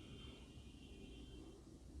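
Near silence: faint low room hum, with a thin high steady tone that fades out after about a second and a half.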